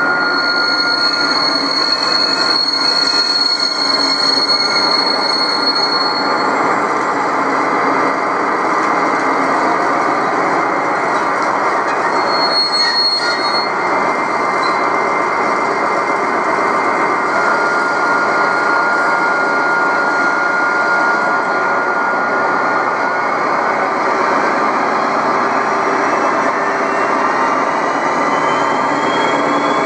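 HO-scale model train running on the layout: a steady rolling noise with long, high squealing tones as a model diesel locomotive hauls a string of tank wagons round a curve. A rising whine comes in over the last few seconds.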